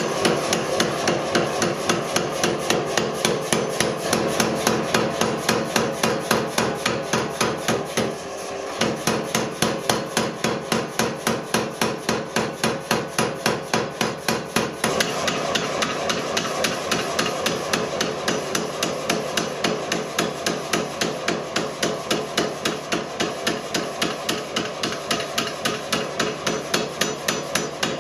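Power hammer pounding a red-hot spring-steel sword blank in a rough swage die, in a fast even run of about three blows a second, with a short pause about eight seconds in.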